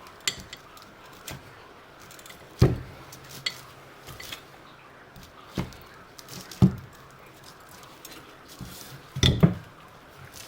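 Scattered sharp metallic clinks and knocks, a few seconds apart with a louder pair near the end, as the forcing screw of a homemade crankshaft splitter tool is turned against a chainsaw crankcase and bearing.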